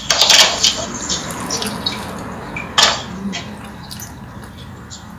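Close-up chewing of a fried cassava fritter: dense crackling in the first second, small clicks, then one sharp crunch a little under three seconds in.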